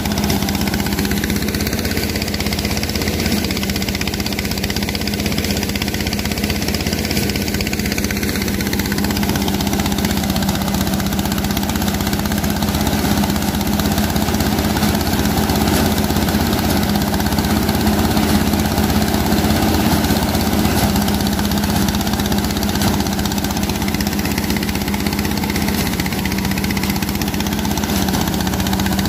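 Engine-driven rice threshing machine running steadily at a constant speed while it threshes rice, threshed grain pouring out of its chute into a sack.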